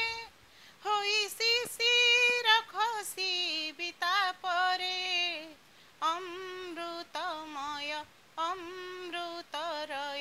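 A woman singing an Odia verse unaccompanied, in long held notes with a slight waver. She sings several phrases with short breaths between them.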